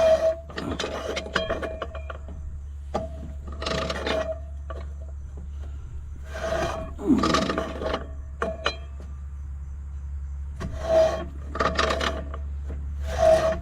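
Hand tool working a nut onto the tractor's belt-pulley shaft: about eight separate rasping metal strokes, spaced irregularly, several with a short metallic ring, over a steady low hum.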